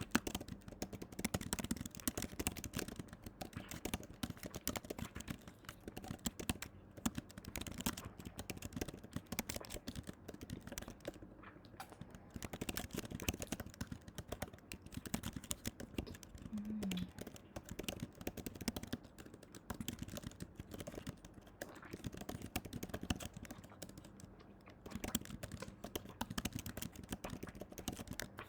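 Dense, irregular clicking and crackling: many small sharp clicks in quick succession, with short lulls.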